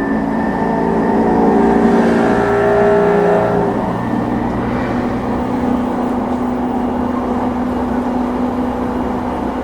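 Running sound inside an E233-2000 series electric train's motor car at speed: the traction motors and gearing give several steady tones over a continuous rumble, together with the growling abnormal noise heard on this car at medium-to-high speeds. After about four seconds the tones thin out to one steady hum.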